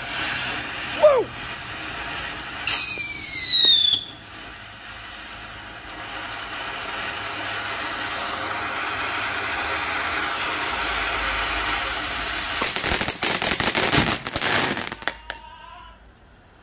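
Black Cat Starfish ground fountain firework spraying sparks with a steady hiss. A short whistle falls in pitch about a second in, and a louder whistle falls from about three to four seconds in. Near the end comes a dense run of crackling pops before the fountain dies down.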